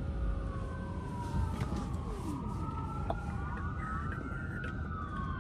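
A siren wailing in slow rising and falling sweeps, several overlapping, over a steady low rumble of traffic and idling car noise.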